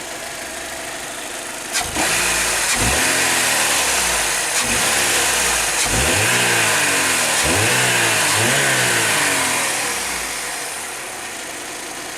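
The 2004 Chevrolet Malibu Classic's 2.2-litre Ecotec four-cylinder engine, idling, is revved up and down several times from about two seconds in, then settles back to idle near the end.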